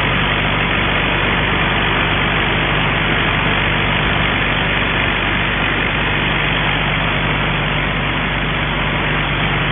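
Reverse circulation drilling rig running steadily: a constant low engine tone under a loud, even hiss.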